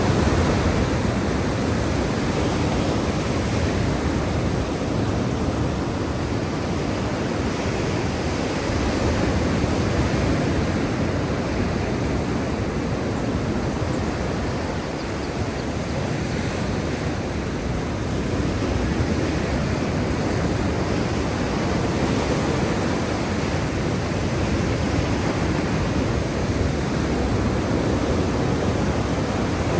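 Sea waves breaking and washing on the shore of the Black Sea, a steady deep rush of surf that swells and eases slowly.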